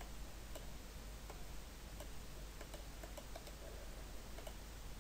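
About ten faint computer mouse clicks at irregular intervals, over a low steady hum of room and recording noise.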